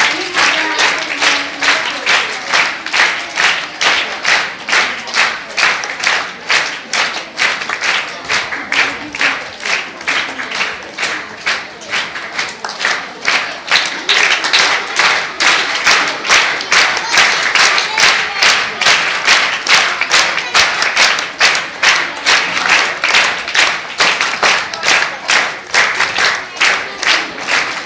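Large crowd of schoolgirls clapping in unison in a steady rhythm, about two to three claps a second, with voices mixed in.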